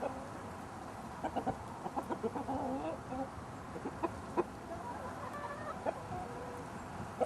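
Backyard flock of hens clucking, with short calls coming every second or so.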